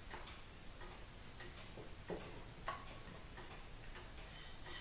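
Faint, light ticks and clicks, roughly evenly spaced about every two-thirds of a second, with a slightly louder tap about two and three-quarter seconds in.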